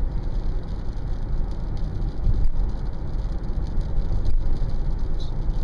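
Steady low rumble of a car driving at highway speed, heard from inside the cabin: tyre and engine noise.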